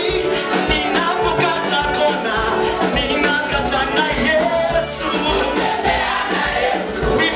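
Live gospel praise music: a group of singers with an amplified band and a steady drum beat.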